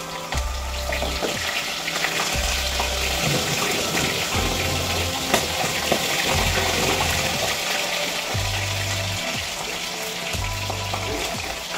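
Hot oil sizzling in a metal wok over a gas burner, a steady hiss throughout. Background music with a low bass note every second or two underneath.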